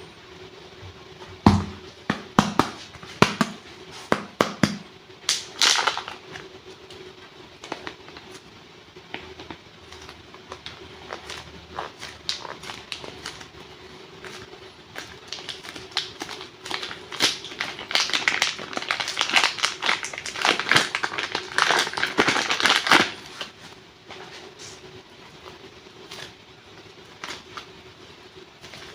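Close-up handling of clay packs and clay. First comes a quick run of sharp taps and clicks, then crinkling and crackling that grows dense and loud for several seconds before stopping abruptly near the end. A faint steady hum runs underneath.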